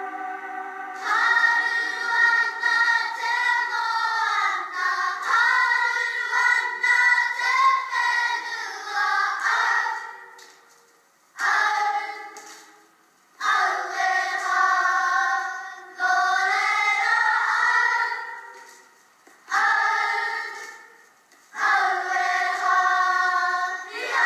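A children's kapa haka group singing a Māori song together in unison, heard through a TV speaker. A held tone from the film score leads in for about a second, then the singing starts. In the second half it comes in phrases of about two seconds with short breaks between them.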